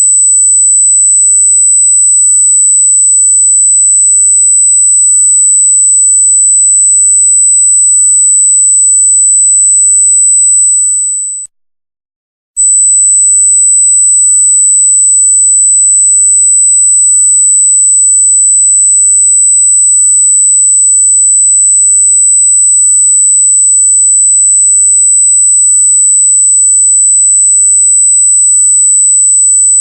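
Loud, steady, very high-pitched electronic sine tone, held at one pitch. It cuts out for about a second near the middle, then resumes.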